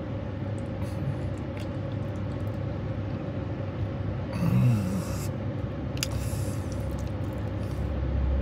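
Steady low hum of a car cabin with the vehicle running, holding one constant tone, under quiet chewing and a few faint clicks. A short closed-mouth "mm" of enjoyment comes about four and a half seconds in.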